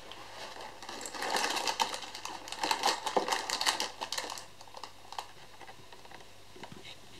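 Lego Technic box being ripped open by hand: a dense run of crackling, tearing and rustling of cardboard and plastic packaging that thins out to a few small clicks after about four and a half seconds.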